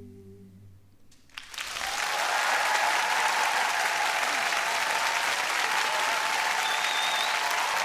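The last held chord of a male a cappella vocal group fades away. About a second and a half in, an audience breaks into loud, steady applause.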